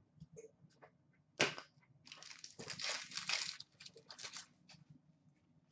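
Trading cards and their packaging being handled on a glass counter: a sharp tap about a second and a half in, then about three seconds of crinkly rustling.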